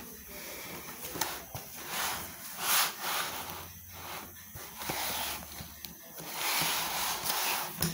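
Paper rustling as the pages of a book are handled and turned, in several short bursts with the longest near the end.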